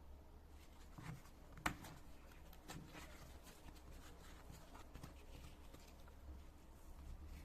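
Faint handling noises: scattered small clicks and light rustles, with one sharp click about a second and a half in.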